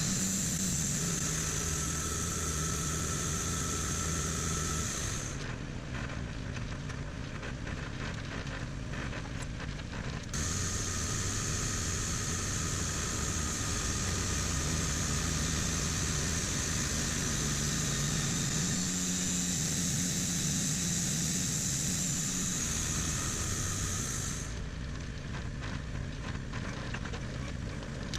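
An engine running steadily, with a high hiss over it that stops about five seconds in, starts again about ten seconds in and stops again near the end.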